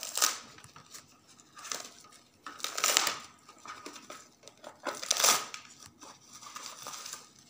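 Clear plastic wrapping crinkling and tearing in about four short bursts, the loudest about three seconds in, as a new Wi-Fi router is unwrapped from its bag.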